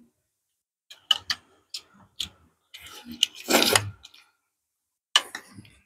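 Table eating sounds: chopsticks and spoons clicking against ceramic bowls in a run of short, sharp, irregular clicks, with one longer noisy sound of eating about three and a half seconds in.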